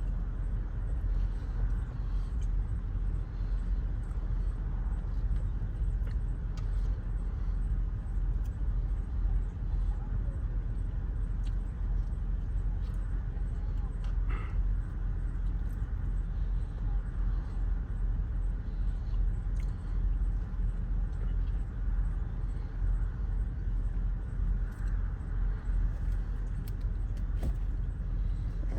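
Steady low rumble throughout, with faint voices of other people in the background.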